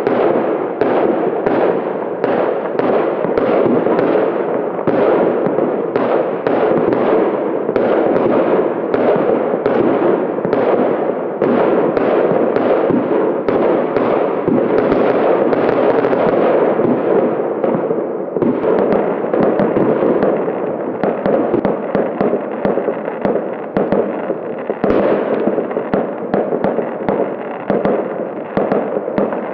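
Fireworks going off in rapid succession: a dense string of bangs and crackle over a constant background of distant explosions. About two-thirds of the way in it thins out into sparser, more separate bangs.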